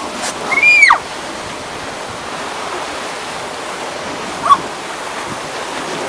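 Steady rush of whitewater around a round raft on a river rapids ride. About half a second in, a rider gives one brief high-pitched squeal.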